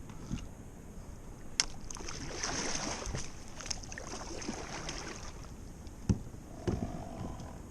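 Water splashing around a kayak while a fish is landed, with a few sharp knocks against the hull. The splashing swells for a few seconds after about two seconds in.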